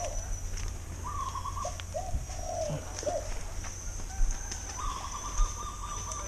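A dove cooing, the same short phrase repeated about every three seconds, with a steady high-pitched whine behind it and a couple of sharp knocks in the second half.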